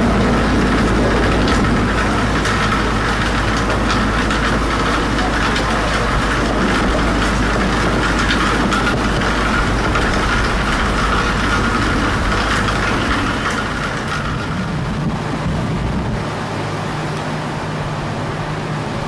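Lockheed C-130 Hercules passing low overhead, its four turboprop engines droning with a steady whine and low rumble; the sound eases off about thirteen seconds in. Near the end a quieter, different steady engine hum takes over.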